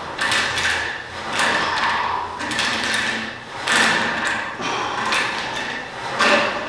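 A gym weight machine being worked through repetitions, with a rasping sliding stroke about once a second.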